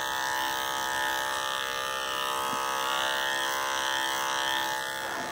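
Andis electric dog clippers running with a steady buzz, trimming a miniature schnauzer's neck fur with the grain.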